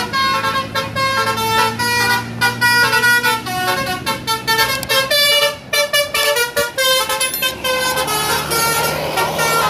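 Tour bus basuri horn, a multi-note musical horn, playing a fast tune of short notes that change pitch, over a low steady hum. Near the end the notes blur into a rushing noise.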